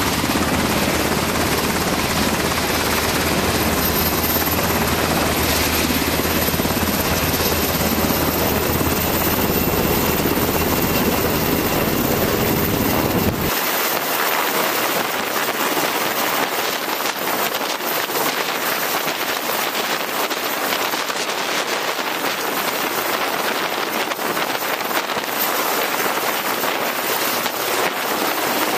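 Black Hawk helicopter running loud and steady on the deck, then lifting off and hovering away. About halfway through, its deep low rumble drops away suddenly, leaving a thinner, hissier rotor noise.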